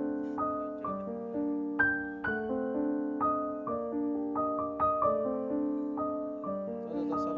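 Background piano music: a slow, gentle melody of single struck notes that ring on and overlap.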